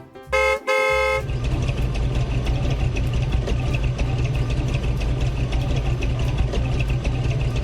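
Two short vehicle horn toots in quick succession, then an engine running steadily at idle with a low drone and a light ticking.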